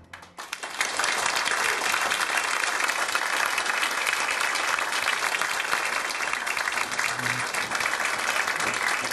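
Audience applauding, the clapping starting about half a second in and going on at a steady level.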